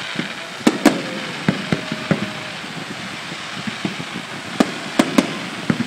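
Fireworks going off: irregular sharp bangs and cracks over a steady hiss, with the loudest reports about a second in and again near the end.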